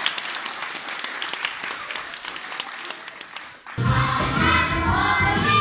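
Audience applause thinning out. About two-thirds of the way in, a song's backing track starts abruptly and a group of young children begins singing.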